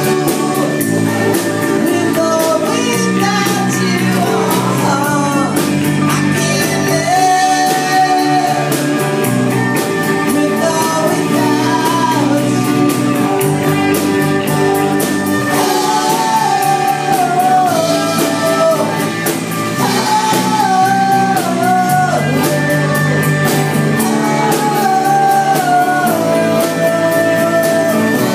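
Live rock band playing a song: electric and acoustic guitars over a drum kit, with a sung melody line that bends up and down.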